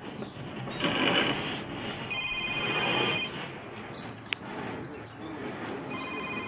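Steel reinforcing bars being shifted and dragged over the lintel formwork: rustling scrapes with two spells of pulsing metallic ringing, the first about two seconds in and the second near the end, and one sharp click a little after four seconds.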